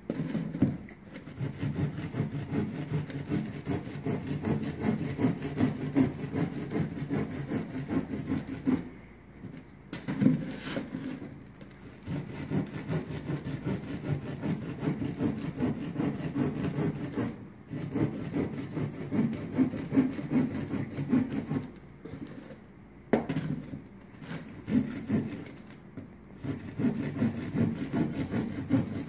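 A hand blade sawing back and forth through a ceiling tile to cut a round hole. The quick scraping strokes are broken by several brief pauses.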